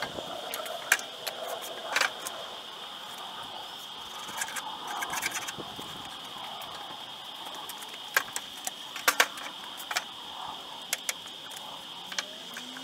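Scattered light clicks, clinks and knocks of a wooden board and tools being handled on a workbench, with a sharp cluster of knocks a little past the middle. A steady high-pitched whine runs underneath.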